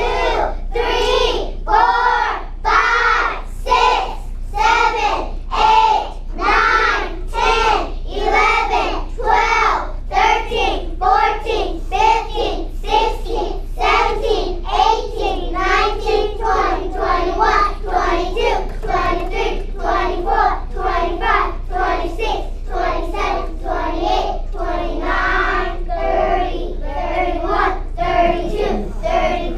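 A class of preschool children singing a song together as a group.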